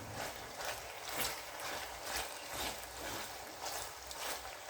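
A spoon stirring and scraping boiled pasta with carrots and sweet corn in a pot with a little oil, about two scraping strokes a second over a light frying hiss.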